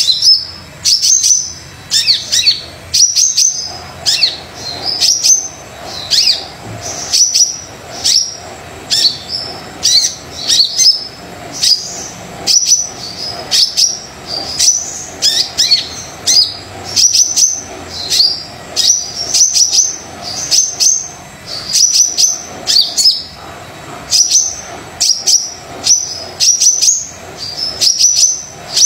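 A sunbird of the kind sold in Indonesia as 'kolibri dada coklat' (brown-breasted sunbird) singing without pause: short, high, rapid chirping phrases that repeat about once or twice a second. A faint steady hum sits underneath from about four seconds in.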